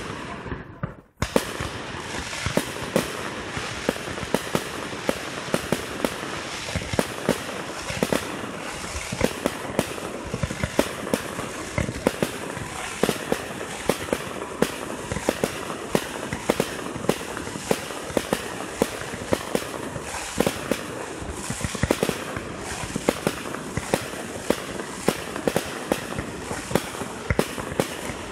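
Fireworks display: a continuous barrage of aerial shells bursting and crackling, with sharp bangs a few times a second over a steady crackle. The sound drops out briefly about a second in.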